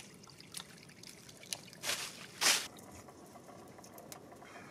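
Trickling spring water with a few short splashing, squelching steps, the loudest about halfway through, then a quieter steady background.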